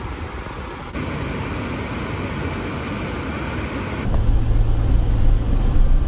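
Cabin noise inside a Honda Vezel Hybrid: a steady hiss, which gets louder about a second in. About four seconds in it gives way to a louder low rumble and steady hum as the car rolls along a gravel road.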